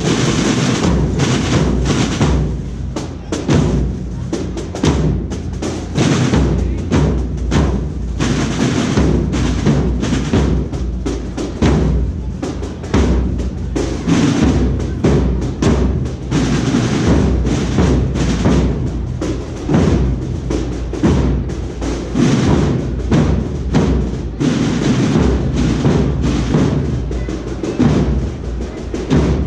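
A processional band playing, led by drums and percussion beating a steady, dense rhythm.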